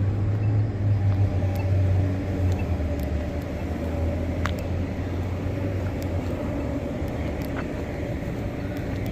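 Road traffic at an intersection: a vehicle's low engine rumble that eases off after about four seconds, leaving a steady traffic hum. Faint sharp ticks repeat about every second and a half.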